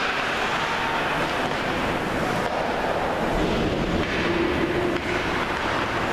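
Ice hockey game in play: skates scraping and carving the ice as a steady, rough noise.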